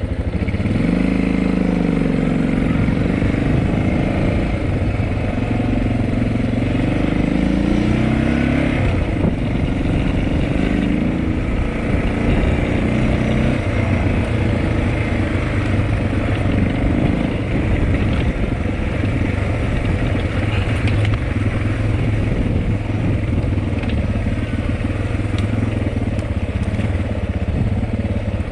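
Dirt bike engine running while being ridden along a trail, its revs rising and falling over the first several seconds and then holding steadier.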